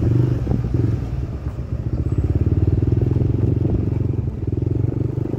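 Yamaha Aerox 155 scooter's single-cylinder engine running at low speed, turning the rear wheel at about 10 km/h. It eases off briefly and picks up again about two seconds in.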